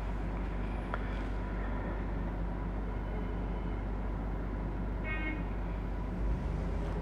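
Steady background noise with a low hum, and a short faint high tone about five seconds in.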